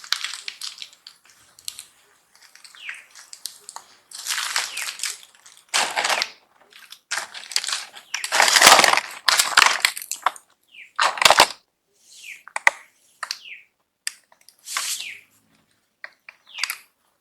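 Macaques calling in a string of short, harsh screeches, mixed with brief high squeaks that fall in pitch; the loudest and longest screeching comes just past the middle.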